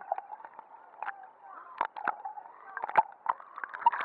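Sea water sloshing and gurgling around a camera moving in and out of the water at the surface, muffled through its waterproof housing, with irregular sharp knocks and splashes.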